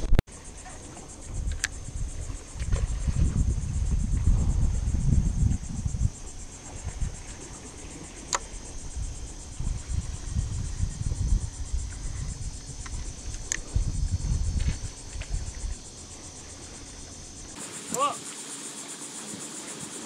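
Gusts of wind buffeting the camera microphone, loudest in two stretches, over a steady high buzz of insects from the mangroves. Three faint sharp ticks are heard along the way.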